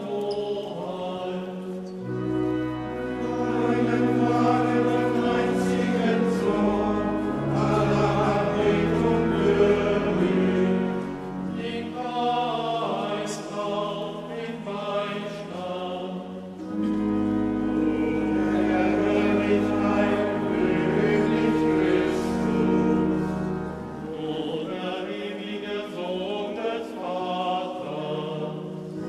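A choir singing with organ accompaniment: sustained held chords over a steady low bass line, changing in step every second or two.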